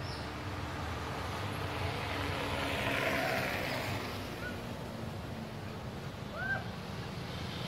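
Background traffic: a vehicle passes, swelling and fading about three seconds in, over a steady low hum. A few short rising chirps come in the second half.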